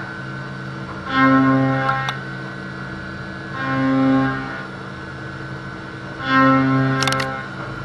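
CNC end mill cutting a 12 mm 6082 aluminium plate in a Doosan Puma machining centre: a steady pitched whine from the cutter that swells about every two and a half seconds as it loads into the cut. A couple of sharp ticks are heard, around two seconds in and near the end.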